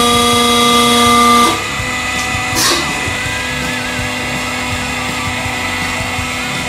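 Hydraulic press pump and motor running with a steady whine while the ram bears down on a thick stack of paper. About a second and a half in, the whine drops and changes as the ram starts to lift, and there is a brief crackle about a second later. The quieter hum then runs on.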